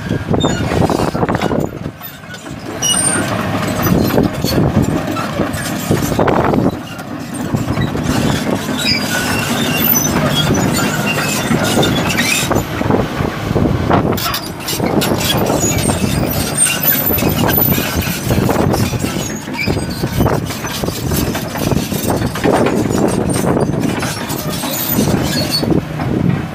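1997 Komatsu PC300LC excavator running, its six-cylinder diesel engine rising and falling in level as the machine works, with many sharp metallic clanks throughout.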